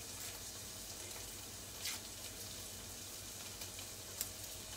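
Sliced onions frying gently in oil in a pan, a steady soft sizzle with faint crackles. Two small sharp clicks stand out, one just before two seconds in and one near the end.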